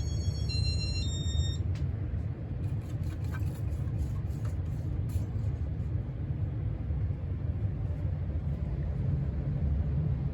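A short run of electronic beeps stepping between a few pitches in the first second and a half, from the fan's IntelliTouch control in demo mode, over a steady low rumble of a room HVAC system, with a few faint clicks after.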